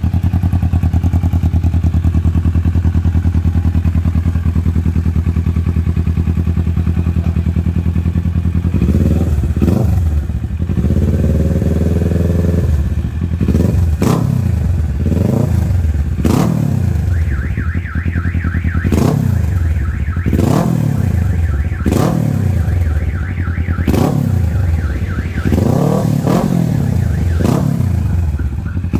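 2017 Kawasaki Ninja 650's parallel-twin engine through an Akrapovic full-system exhaust, idling steadily, then about nine seconds in revved in a quick series of throttle blips, about one a second, each rising and falling in pitch. Sharp cracks come with several of the blips.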